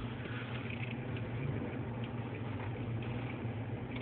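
Steady low engine hum and road noise inside a four-wheel-drive vehicle's cabin as it backs up through snow, with a few faint clicks.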